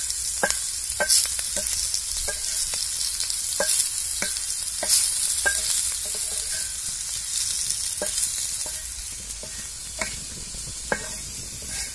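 Okra sizzling in oil on a flat griddle, stirred with a wooden spatula that scrapes and taps the pan with each stroke, a little under two strokes a second.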